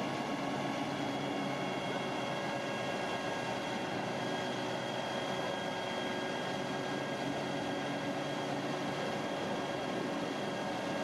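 Fire department aerial ladder truck's engine and hydraulic pump running to work the raised ladder: a steady mechanical hum with several steady whining tones above it, unchanging throughout.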